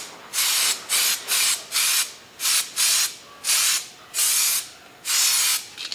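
Aerosol can of high-build automotive primer spraying in a series of short hisses, each under a second, with brief gaps between as the nozzle is pressed and released. This is a coat of primer being dusted over filler.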